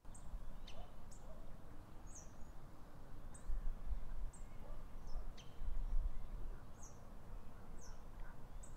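Outdoor ambience: a small bird gives short, high chirps over and over, about one or two a second, over a steady hiss. Low wind rumble on an unprotected microphone swells a few times.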